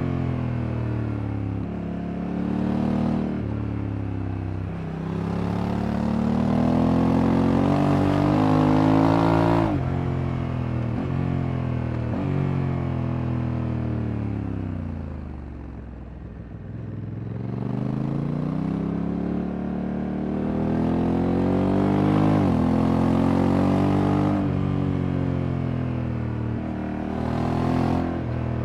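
Honda Africa Twin Adventure Sports DCT's 1084 cc parallel-twin engine under way, pulling up through the gears with quick automatic shifts. Its pitch falls away as the bike slows in the middle, then it accelerates and shifts up again.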